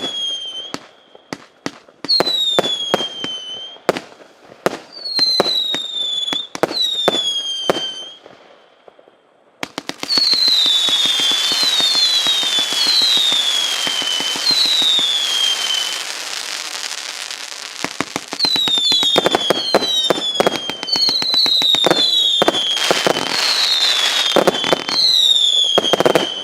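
Multi-shot firework cake of 0.8-inch shots firing in rapid succession: sharp launch reports, each shot trailing a falling whistle, with a short lull about eight seconds in followed by a stretch of dense crackling.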